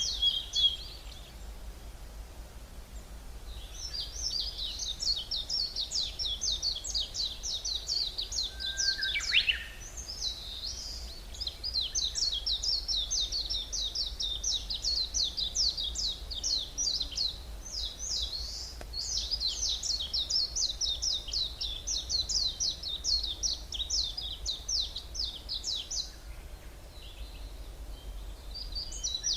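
Woodland songbirds singing: long runs of rapid, high, repeated notes lasting several seconds each, with short pauses between. A quick falling note comes about nine seconds in, and a faint low rumble runs underneath.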